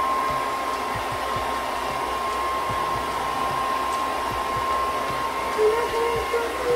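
Pet hair dryer running steadily with a high whine, blowing a dog's coat dry.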